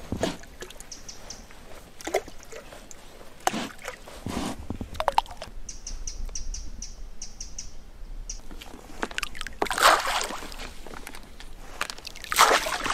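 Handfuls of carp bait (maize, tiger nuts and seed mix) scooped by hand and thrown onto a lake, landing with spattering splashes. The loudest splashes come about ten seconds in and near the end. A short run of high chirps sounds around the middle.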